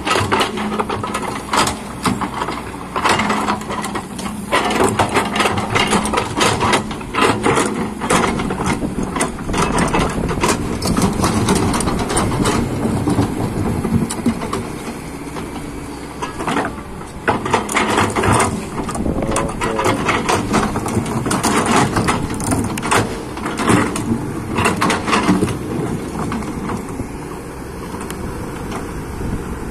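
Excavator at work: its diesel engine running with a steady drone under many irregular clanks, knocks and scraping as the machine digs and moves earth.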